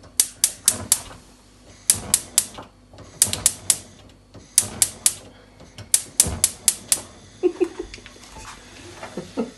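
Gas hob spark igniter clicking in quick runs of three or four, about five runs in all, stopping about seven seconds in.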